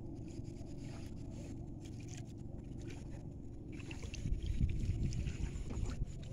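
Steady low rumble with a faint hum, growing uneven and gustier about four seconds in.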